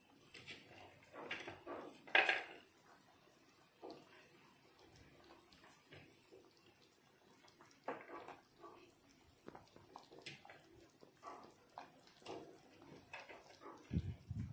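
A pot of pork and vegetable stew boiling on a gas stove: scattered bubbling plops and small pops, a few louder than the rest, with a dull thump near the end.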